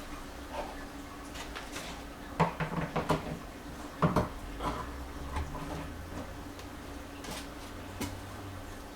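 Knocks and rattles of handling, as a container or enclosure is opened and shut: a quick cluster of sharp knocks about two and a half seconds in, a louder knock at about four seconds, then a couple of single clicks near the end.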